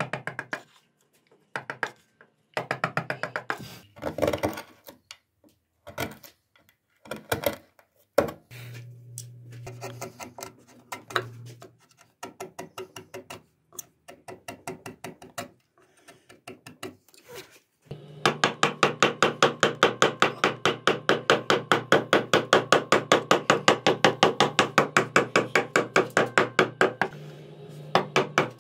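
A metal carver's mallet tapping a carving gouge through wood. The taps come in short runs with pauses at first, then in a steady unbroken run of about four to five taps a second from a little past the middle.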